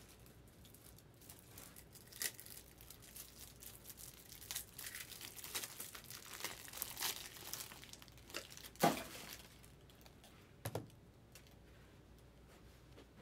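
Foil wrappers of trading-card packs crinkling and tearing as they are opened, with cards being handled. A few soft knocks, the loudest about two-thirds of the way through.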